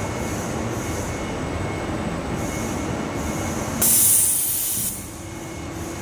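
Automatic duvet sewing machine running with a steady mechanical clatter. About four seconds in there is a loud burst of compressed-air hiss lasting about a second, typical of a pneumatic valve releasing.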